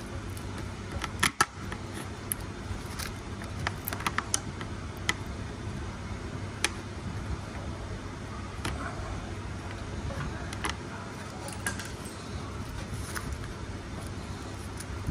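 Scattered light metallic clicks and clinks of hand tools and car parts being handled, the sharpest about a second and a half in, over a steady low hum.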